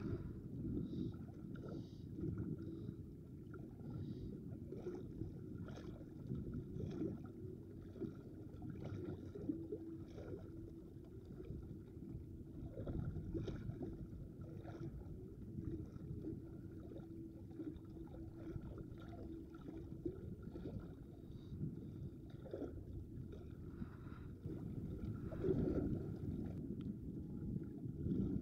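Seaside ambience: water lapping against a rocky seawall, with wind rumbling on the microphone and small clicks from hands handling fishing line and a tiny fish. A faint steady hum runs through the middle.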